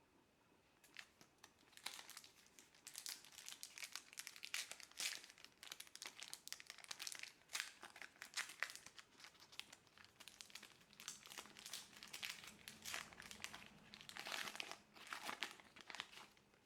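Wrapper of a trading-card pack crinkling and tearing as it is handled and opened, in irregular bursts from about a second in until near the end.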